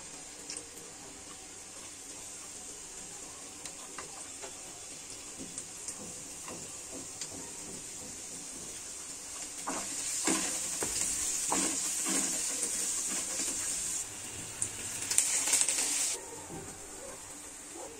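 Sliced onion and chopped garlic sizzling in hot oil in a frying pan. From about ten seconds in the sizzle grows louder and a wooden spatula scrapes and stirs against the pan several times.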